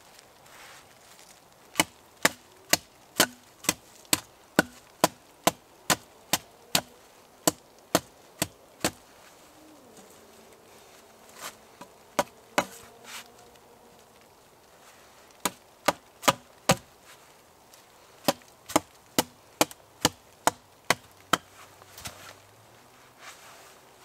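Hatchet chopping at the end of a wooden pole: sharp wood-on-steel strikes about two a second, in three runs with pauses between.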